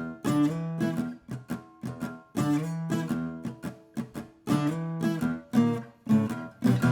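Background music: an acoustic guitar playing a bouncy pattern of short, clipped chords.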